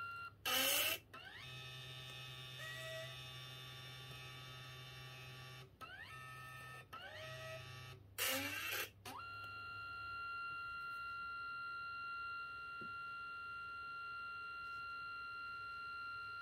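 Samsung Pricker portable photo printer running through its print passes: a steady motor whine as the paper is drawn in and fed back out, with short rising whines as the motor speeds up. Two short, louder bursts come about half a second in and again about eight seconds in.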